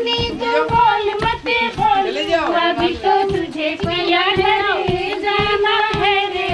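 Music with women's singing over a fast, steady drumbeat.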